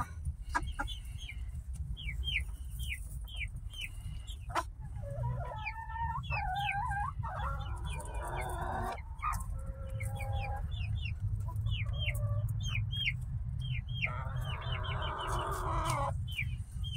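Silkie chickens clucking, with runs of many short, high, down-curving chirps and a few lower clucking calls in the middle. Two spells of rustling in wood shavings break in partway through and near the end.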